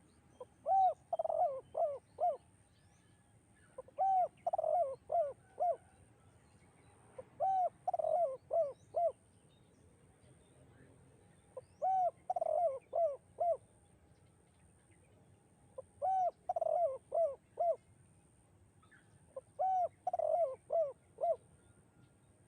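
Spotted dove cooing: six songs about four seconds apart, each a quick run of four or five arching coos.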